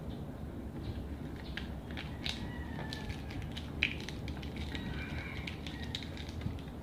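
Crisp fresh lettuce leaves crunching and crackling in scattered short snaps.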